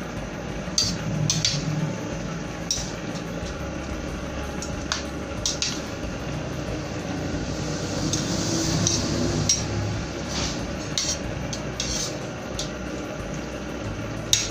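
Metal spatula stirring sliced bamboo shoots and shrimp in coconut milk in a metal wok: scattered clinks and scrapes of metal on the pan, with a longer wet scraping stir a little past the middle, over a steady low hum.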